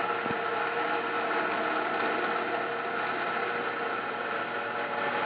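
Small tabletop coral band saw running steadily while its thin blade cuts through the rock base of a zoanthid coral colony. It makes an even mechanical whir with a few constant tones.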